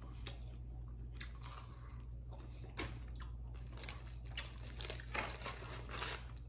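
A man chewing and biting into fried chicken wings close to the microphone: irregular wet mouth sounds and small crunches, with a few sharper clicks about five and six seconds in.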